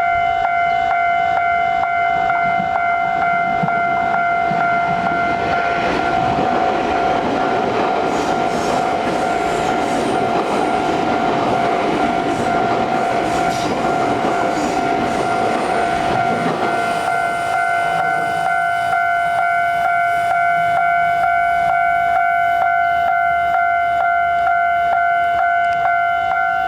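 A level-crossing warning signal sounds a steady high tone throughout. From about six seconds in, a TEMU1000 Taroko Express tilting electric train rushes over the crossing, its wheels clicking over the rail joints, and the train noise fades by about seventeen seconds in.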